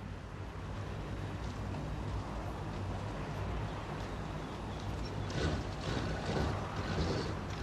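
A van's engine and road noise inside the cabin, a steady low hum. Louder rustling noises come in over the last two seconds or so.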